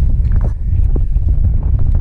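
Wind buffeting the microphone: a loud, uneven low rumble, with a few faint ticks of handling over it.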